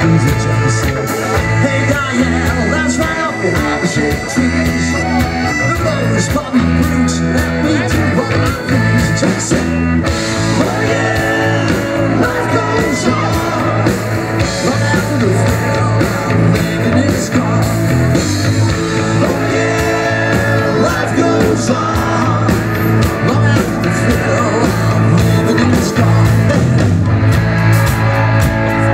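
Live rock and roll band playing, with a man singing lead into a microphone over electric guitar and drums.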